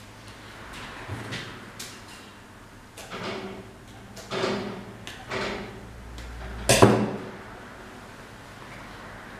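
Kitchen twine being pulled through and drawn tight around a rolled porchetta as it is hand-stitched shut: a few short rasping pulls, then one sharp knock on the steel worktop a little before the end.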